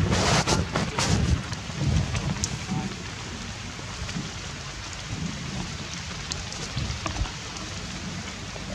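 Light rain falling: a steady patter of drops with scattered sharper drip ticks. In the first two seconds there is a louder, low rumbling.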